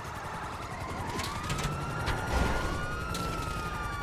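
Video-game police car siren wailing: one long rising then slowly falling wail as the cruiser closes in, over the low rumble of a car engine, with a few sharp clicks.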